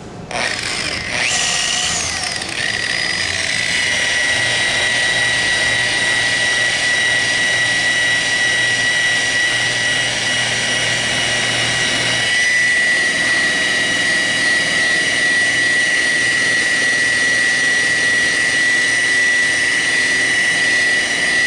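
Electric rotary polisher with a wool buffing pad starting up about a quarter second in, its whine rising over about two seconds, then running at a steady high whine while buffing glaze into painted aircraft skin. About twelve seconds in, the lower part of its sound changes.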